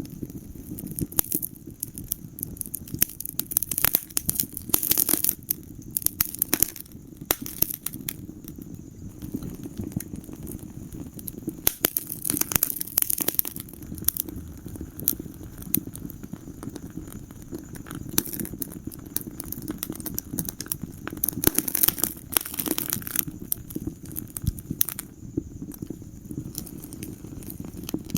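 Wood fire crackling in a fireplace: dense, irregular snaps and pops over a low, steady rush of flame, with louder clusters of pops at several points.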